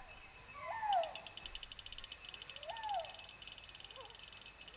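Insects droning with steady high whines, joined about a second in by a fast, even chirping trill. Two short calls that rise and then fall in pitch cut through it, with a fainter third near the end.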